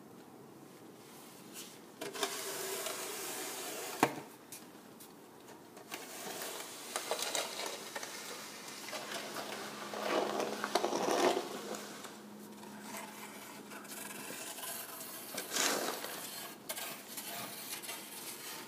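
Shovels scraping snow off a concrete driveway in a series of uneven strokes, with a sharp knock about four seconds in.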